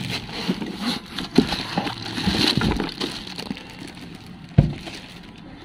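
Plastic wrap crinkling and polystyrene foam packing scraping and creaking as an amplifier is unpacked from a cardboard box, with one sharp thump about four and a half seconds in.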